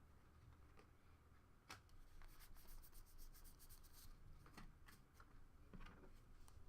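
Faint rustling and soft ticks of trading cards being slid and flipped through by hand, with a quick run of small card-edge clicks about two seconds in.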